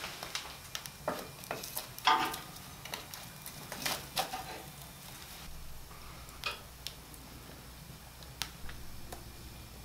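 Wood fire crackling in an open wood stove, with a metal poker knocking and scraping against the burning logs and the firebox. Irregular sharp clicks and knocks, busier in the first half and sparser later.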